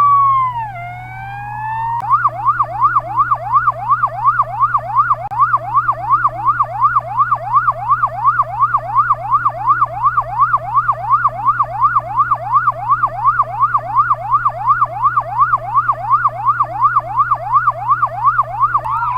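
Chinese ambulance electronic siren. A held tone drops in pitch and slowly climbs back, then from about two seconds in the siren switches to a fast yelp sweeping up and down two to three times a second. Near the end it changes back to a slower rising wail. A steady low hum runs underneath.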